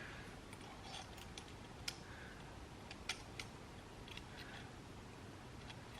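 Faint, scattered light clicks and taps of small metal parts: new clutch springs and their bolts being set by hand onto a Honda CR125's clutch pressure plate.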